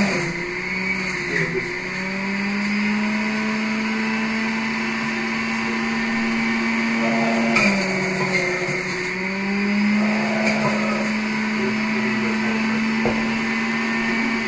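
Electric juicer motor running steadily with a constant hum. Its pitch dips briefly twice, about a second in and about halfway through, and recovers each time.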